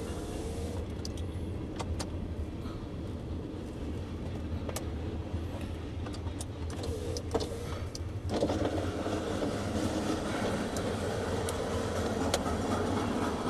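Idling truck heard from inside its cab, a steady low hum with scattered small clicks and knocks. About eight seconds in, a louder rumble sets in: the passing freight train.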